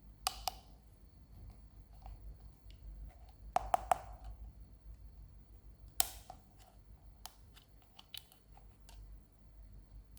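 Sharp clicks and taps of plastic toys and packaging being handled. There are two near the start, a quick run of three about three and a half seconds in, the sharpest single click about six seconds in, and lighter ticks after it.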